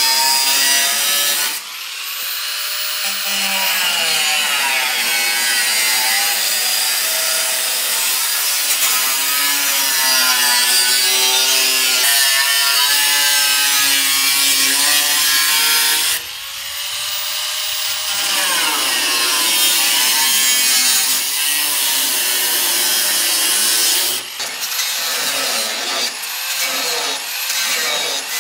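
Angle grinder cutting through the steel bodywork of a Mercedes E-class, its whine dipping and recovering as the disc bites into the metal. It breaks off sharply a couple of times, and near the end it goes in short stop-start cuts.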